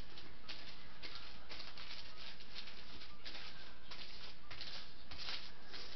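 Paper sheets crinkling and rustling under a wooden rolling pin rolled back and forth over them to flatten chicken breasts, in repeated strokes about twice a second.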